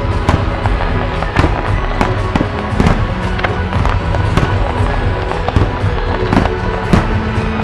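Fireworks display: aerial shells and ground-fired comets going off in an irregular string of sharp bangs and crackles, about two a second, with loud music playing underneath.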